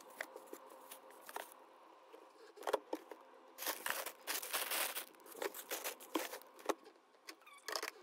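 Plastic bags of frozen meat crinkling and rustling as they are handled in a freezer drawer, with light clicks and knocks. The rustling is busiest about four to five seconds in.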